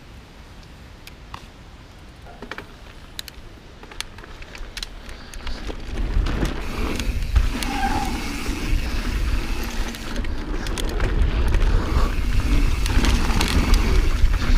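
Transition Patrol Carbon mountain bike riding down a dirt trail: light scattered clicks and rattles at first, then from about six seconds in a louder, steady rush of tyres and wind as speed picks up.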